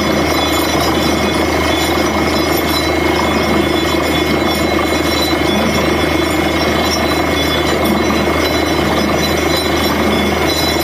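Truck-mounted borewell drilling rig running steadily while drilling, a loud, continuous mechanical din of engine and drilling with a constant hum and a thin steady whine.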